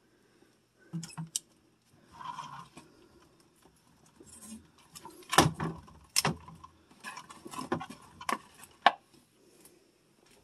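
Food containers being taken out of a refrigerator and set down: scattered clinks and knocks with softer handling noise, the sharpest knocks a little past halfway.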